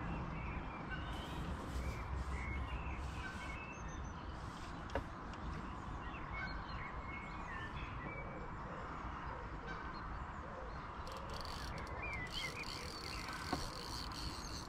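Small birds chirping with scattered short calls, over a steady low outdoor background hiss and rumble. Two brief clicks, about five seconds in and near the end.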